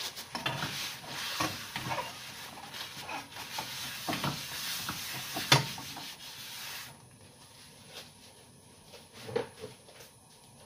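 Rubbing and rustling noise with scattered clicks and a sharp knock about five and a half seconds in, from kitchen items being handled; it dies down to quiet about seven seconds in.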